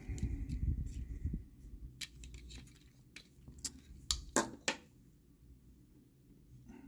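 Handling noise from a plastic Transformers figure being worked on with a small screwdriver: a low rustle at first, then scattered light clicks and taps of hard plastic and metal, with a few sharper clicks past the middle.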